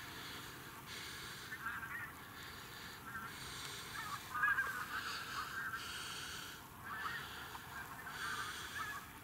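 A flock of wild geese calling in flight, many overlapping calls at once, with a hiss that comes and goes about once a second.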